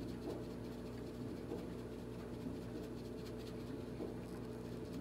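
Faint patter and rattle of paprika shaken from a spice shaker over food in a roasting pan, over a steady low hum.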